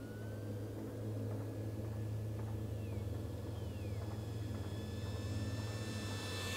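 Brushless electric motor and propeller of an E-Flite 1.2 m P-51D Mustang RC foam model whining in flight. A steady high tone that grows louder in the second half as the plane comes in low, over a steady low hum.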